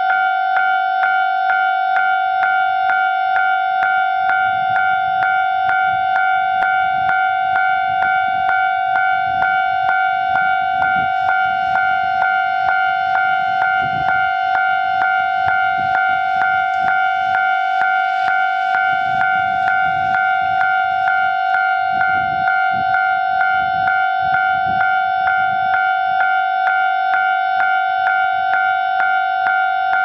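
Japanese railway level-crossing warning bell ringing in a steady, even string of electronic dings on one unchanging pitch. It sounds as the crossing is closed for an approaching train. A faint low rumble comes and goes beneath it in the middle stretch.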